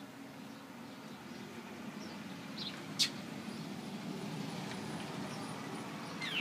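A few short, sharp bird chirps from the birds harassing the dog, the loudest about three seconds in and another near the end, over a steady low rumble.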